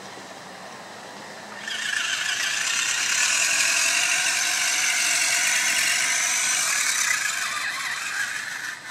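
Electric RC rock crawler's motor and gearbox whining as it climbs a dirt hill. The high whine starts about two seconds in and wavers in pitch with the throttle, then stops near the end.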